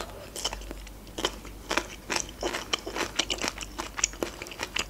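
Close-miked crunching as a person bites into and chews a crisp raw green vegetable stick: a string of sharp, crackly crunches, a few each second.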